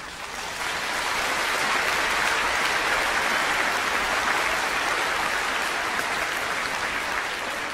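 Large audience applauding, swelling over the first second, then steady, and starting to fade near the end.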